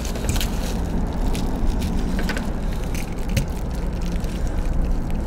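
Light clicks and rustling of hands working small wires into a screw terminal block on a circuit board, scattered irregularly over a steady low hum.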